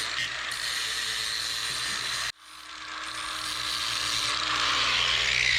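Handheld power grinding tool cleaning up a fresh weld on metal, a steady high-pitched grinding hiss. It cuts off abruptly a little over two seconds in, then comes back and builds gradually louder.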